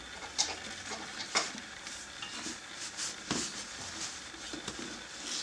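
Knobbly motorcycle tyre being worked by hand on a spoked wheel rim: irregular light clicks, knocks and scrapes of rubber and metal as the bead is pushed around the rim.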